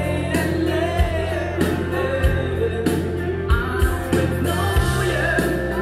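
Live band performing a pop song: a woman singing lead over keyboards and a backing band, with a steady beat.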